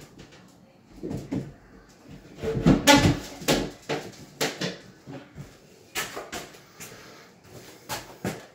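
Irregular knocks and clunks of wooden cabinet parts being handled and bumped into place during a cabinet install, the loudest a ringing clunk about three seconds in.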